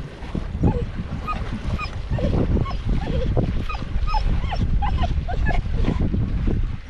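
A dog whimpering and yipping in many short high cries, over a continuous low rumble.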